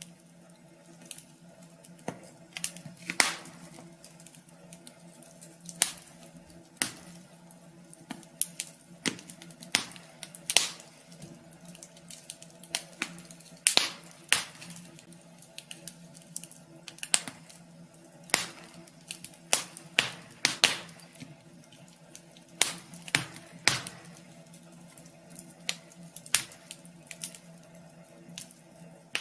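Wood fire crackling in a wood stove: irregular sharp pops and snaps, sometimes several close together, over a faint steady hum.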